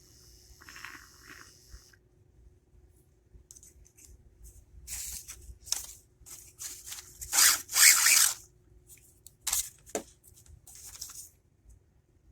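Irregular rustling and scraping of things being handled, possibly packaging being torn, loudest in a burst from about seven to eight and a half seconds in, with a short knock near the ten-second mark.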